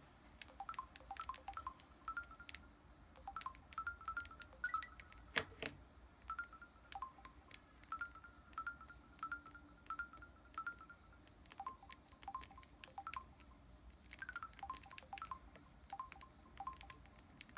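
Samsung Anycall SCH-W200 feature phone giving short key beeps with faint button clicks, a few per second, at a higher pitch at first and a lower one from about twelve seconds in. A single sharp click about five and a half seconds in.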